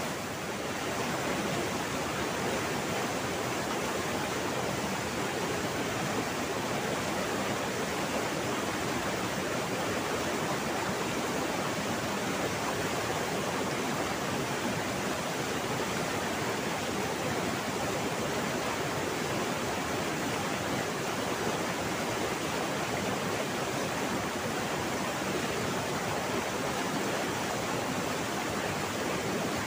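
Rushing water of a waterfall and fast-flowing river, a steady unbroken roar of noise.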